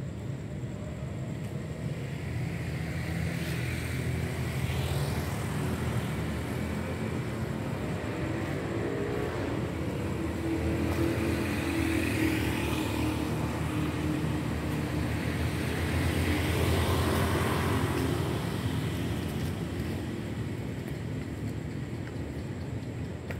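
Road traffic: a steady low rumble with several vehicles passing in turn, each swelling and then fading away.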